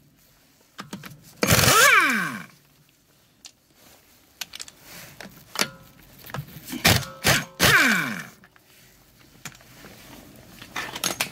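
Pneumatic impact wrench hammering on a VW Passat's wheel bolts to undo them. There are two short bursts, about a second and a half in and again near the end, each ending in a falling whine as the air motor spins down. Before the second burst there are a few clicks of the socket going onto a bolt.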